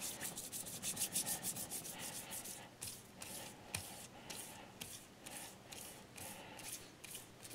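Micro-Mesh 3600-grit abrasive pad rubbing over a filled chip repair on a ceramic plate in a quick run of short, faint strokes. Each stroke is a one-way push, not back-and-forth, as the fine grit levels and polishes the patch.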